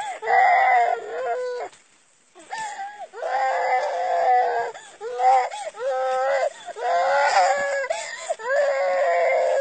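A small child crying in long, high-pitched wails, broken by short breaks for breath, with one longer pause about two seconds in.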